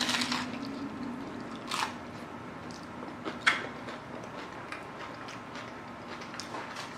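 Biting into a crisp hard-shell taco with a crunch, then chewing it, with two more sharp crunches about two and three and a half seconds in and softer chewing after.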